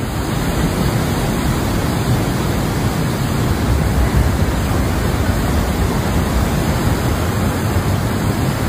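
Muddy flash-flood torrent rushing through a river channel: a loud, steady rush of water with a heavy low rumble.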